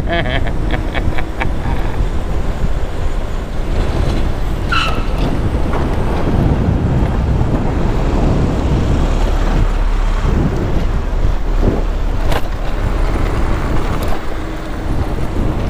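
Steady wind and road rumble on a camera riding along a town street on an e-bike, with car traffic around. A brief high squeal about five seconds in and a couple of sharp clicks near the end.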